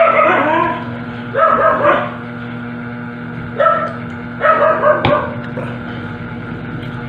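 A dog barking in a few short bouts, about four in all, with gaps of a second or two between them, over a steady low hum.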